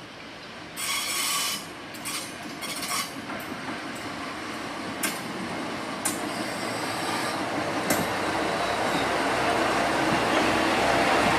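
Yuri Kogen Railway YR-2000 Niigata Transys diesel railcar pulling into a station and growing steadily louder as it draws alongside. Short high squeals come in the first three seconds, sharp wheel clacks over rail joints come a few times later, and the railcar's diesel engine runs more plainly near the end.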